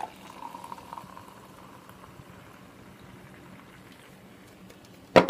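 Mountain Dew Voltage and Pitch Black poured from two cans at once into a glass: the stream splashes in for about the first second, then the carbonated soda fizzes steadily. A single sharp knock comes near the end.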